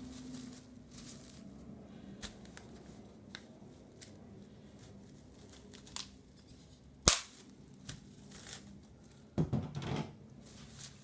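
Kitchen handling noises: scattered light clicks and taps, one loud sharp snap about seven seconds in, and a brief rustle near the end.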